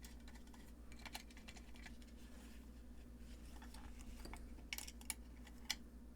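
Faint, scattered clicks and light taps of small tools and metal hardware as the nuts on a guitar-pedal kit's jacks and pots are loosened and re-tightened, with a few sharper clicks near the end. A steady low electrical hum runs underneath.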